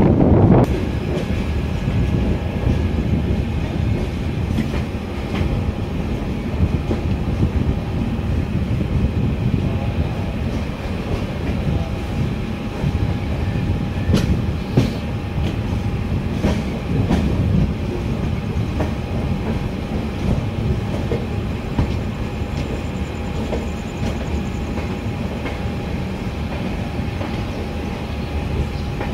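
Passenger train running along the track: a steady rumble with scattered clacks of the wheels on rail joints.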